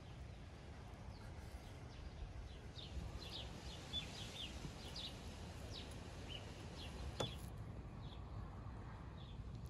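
Small birds chirping, a run of short quick high chirps over a low steady outdoor rumble, with a single sharp click about seven seconds in.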